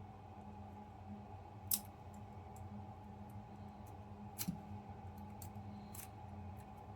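A lock pick working the pin stack of a Bunker Hill Security 50mm padlock: three sharp metallic clicks and a few fainter ticks, over a steady low hum.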